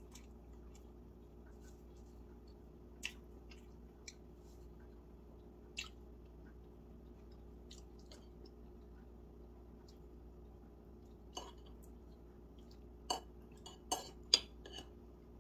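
Eating sounds: scattered soft clicks of chewing and mouth noises, then a short run of sharper clinks of tableware in the last few seconds, over a faint steady room hum.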